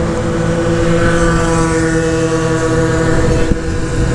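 A 50cc two-stroke scooter engine held at wide open throttle on a long run, its note holding a steady pitch, with wind rushing over the microphone.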